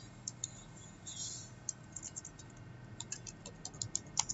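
Computer keyboard keys clicking as a word is typed: a few scattered clicks, then a quicker, irregular run of keystrokes in the last second and a half.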